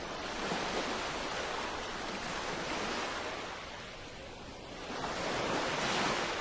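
Ocean surf: waves washing in, the rush swelling, falling back and swelling again near the end.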